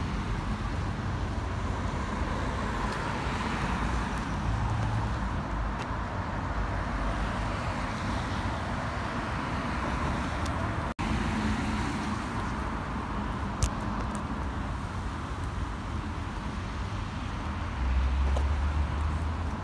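Steady road traffic noise, the rush of cars passing on a busy road. The sound drops out for an instant about halfway through, and near the end a louder low rumble comes in.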